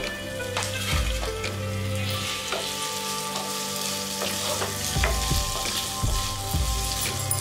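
Chopped tomatoes, onions and green chillies sizzling in oil in a nonstick frying pan, stirred with a spatula that scrapes and taps against the pan now and then.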